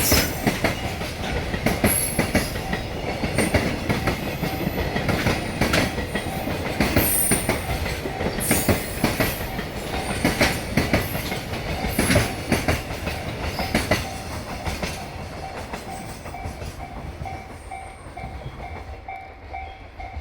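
Freight train of container wagons rolling past, its wheels clattering loudly over rail joints, the clatter thinning out and fading over the last several seconds. A level-crossing warning bell rings on steadily with a quick, even pulse.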